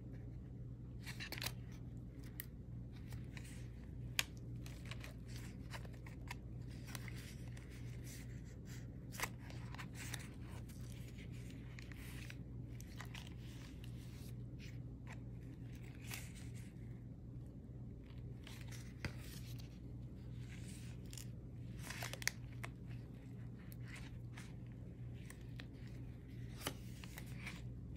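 Pages of a chunky handmade paper-tag journal being turned and handled: stiff layered paper rustling and crinkling in short bursts, with a few sharp taps and clicks. A steady low hum runs underneath.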